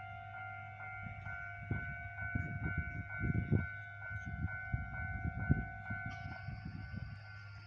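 Japanese railway level-crossing alarm ringing its electronic two-tone bell at about two strokes a second, the warning for a train about to pass. Irregular low rumbling runs beneath it, loudest around three and a half seconds in.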